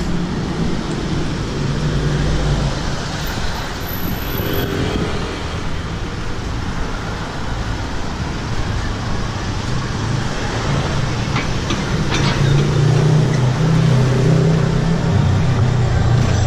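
Street traffic: cars, vans and motorbikes driving past, with a low engine rumble that grows louder in the second half as vehicles pass close.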